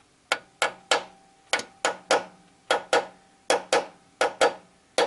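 Hammer tapping lightly on the nuts threaded back onto a stuck connecting-rod cap of a VAZ 2111 engine, to jar the tight cap loose from the crankshaft. About a dozen sharp metallic knocks in quick twos and threes, each with a short ring.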